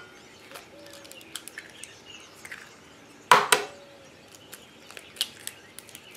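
An egg rapped once, sharply, on the rim of a stainless steel bowl about three seconds in, the bowl ringing briefly after the knock. Small clicks and crackles of eggshell being broken open and pulled apart come before and after it.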